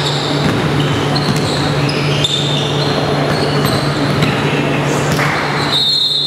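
Basketball game sounds echoing in a large gym: the ball bouncing on the hardwood court and sneakers squeaking, over a steady low hum.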